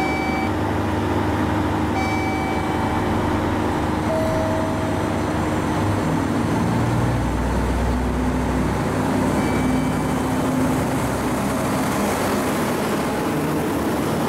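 KiHa 66 series diesel railcar's engine running at the platform, its rumble swelling about seven seconds in as the train pulls out. Near the end the cars roll past. A few short high beeps sound over it.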